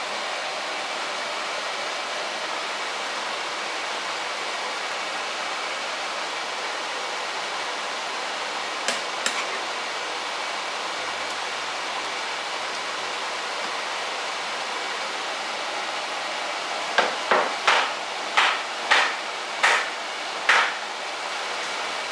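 Steady hiss of a pot of rice boiling and a vegetable sauce simmering on the hob. Near the end, about seven sharp knocks in quick succession as eggs are cracked one after another against the rim of a bowl.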